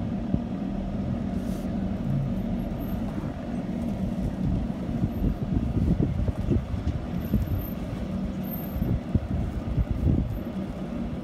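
A vehicle engine idling steadily, with uneven wind rumble on the microphone.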